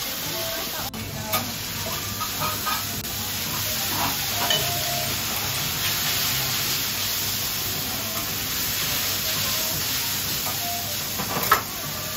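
Yakisoba noodles and cabbage sizzling steadily on a large flat-top griddle, with metal spatulas scraping and clinking on the iron plate as the noodles are tossed. A sharp metallic clank comes near the end.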